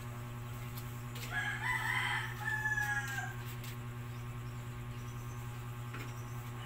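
A rooster crowing once, a call of about two seconds starting about a second in, over a steady low hum.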